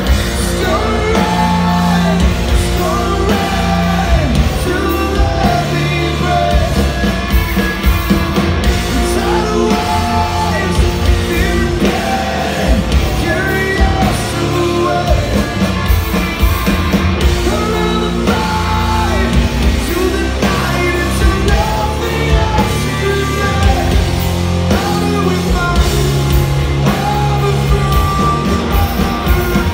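Live rock band playing at full volume: electric guitars, bass and drums with a lead vocal singing over them, heard from within the audience in a large hall.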